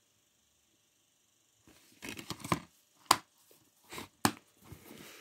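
Plastic DVD cases being handled: rustling and scraping of plastic, with two sharp clicks a little over a second apart. It starts after about a second and a half of near silence.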